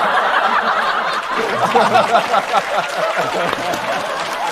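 Studio audience laughing and clapping in response to a joke: many voices laughing at once over the patter of applause.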